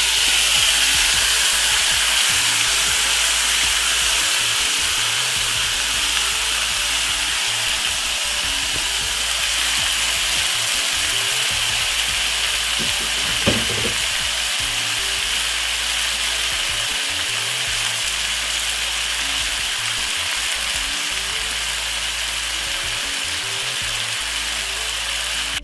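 Marinated chicken pieces sizzling steadily in a really hot frying pan with sautéed garlic and onion, with one short knock about halfway through. The sizzle cuts off suddenly at the end.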